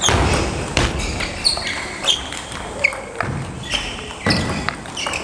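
Table tennis rally: the celluloid ball clicks off rubber paddles and bounces on the table in an irregular series of sharp hits, about one every half second to a second.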